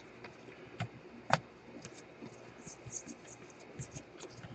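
Baseball trading cards being handled: faint scratchy sliding and rustling of card against card as a stack is sorted through by gloved hands, with a few small clicks and one sharper flick about a second and a half in.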